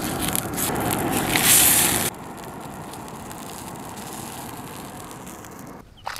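Pot of potatoes boiling over a cooking fire: a steady hiss and crackle. It is louder for the first two seconds, then drops suddenly to a quieter hiss.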